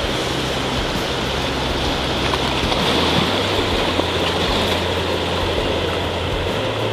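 Steady rushing, churning water noise over a low rumble, as during snorkeling in the sea.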